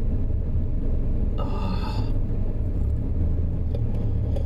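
Steady low road and engine rumble inside a moving car. A brief high-pitched tone sounds about a second and a half in.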